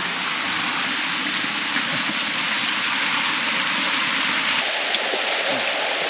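Mountain stream water rushing over rocks, a steady, dense hiss.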